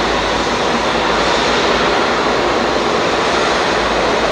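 Boeing 777-200ER's Rolls-Royce Trent turbofans running at taxi power: a steady, even rush of jet noise.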